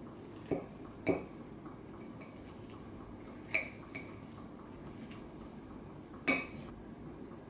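Metal knife and fork clinking against a ceramic plate while cutting French toast: a handful of short, sharp clinks spread out, the loudest about a second in and near the end.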